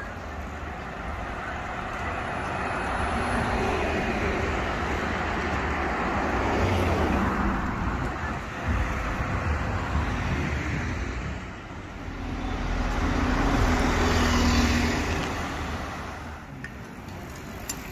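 Road traffic: cars driving past close by, swelling twice as vehicles go by. The second pass, about twelve seconds in, carries a steady engine note.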